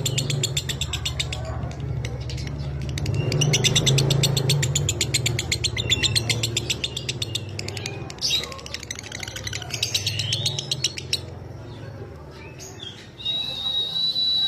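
Lovebird chattering its long 'ngekek' song: three long bursts of rapid, buzzy repeated high notes over a low background hum. Near the end a steady, high whistle-like tone starts and holds.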